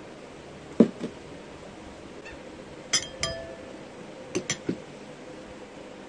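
A glass soju bottle is set down on the table with a knock about a second in. About two seconds later come two clinks of tableware that ring briefly, and near the end three quick clicks.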